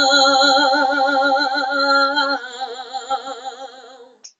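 A woman's voice holding one long sung note with vibrato at the end of a line of a worship song, fading away near the end.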